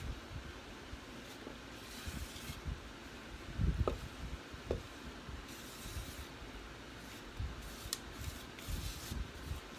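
Silicone spatula scraping cake batter out of a mixing bowl into a metal cake pan: soft, uneven scrapes and plops of batter, with a dull knock a little under four seconds in and a few light clicks.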